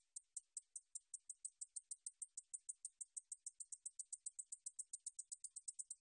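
Japanese bush katydid (Ducetia japonica) calling: a series of short, high ticks that speeds up from about five to about seven a second.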